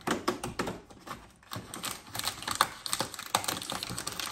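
A cardboard advent calendar door being opened and a dog-treat packet handled in its plastic inlay: an irregular run of small clicks and crackles.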